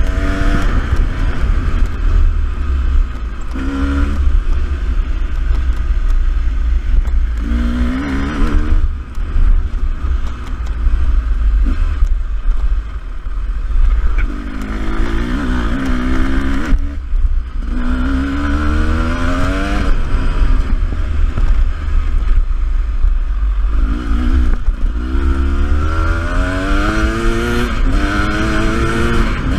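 Beta 300RR two-stroke enduro bike engine under riding load, revving up and backing off over and over, its pitch climbing with each burst of throttle. Heavy wind rumble on the microphone throughout.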